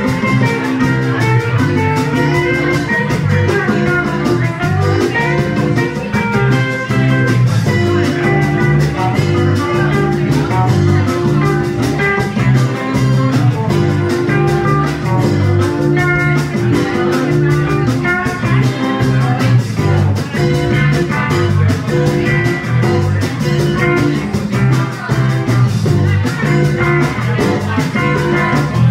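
Live band playing, with acoustic guitar over a drum kit, the music running steadily throughout.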